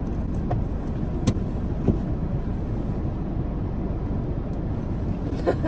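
Car engine running, heard from inside the cabin as a steady low rumble, with a sharp click a little over a second in and a softer knock just after.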